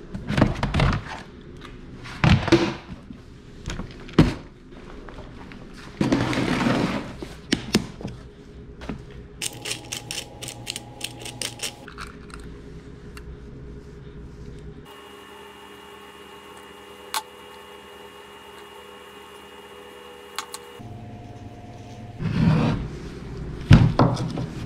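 Hand work on a barn exhaust fan's motor while a replacement run capacitor is fitted: scattered knocks and thumps of tools and parts being handled, with a run of quick clicks near the middle.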